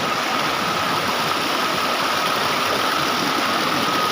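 Steady roar of rushing water from the Coban Rondo waterfall, with a thin steady high tone running under it.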